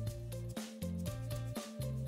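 Background music with a steady beat over a bass line.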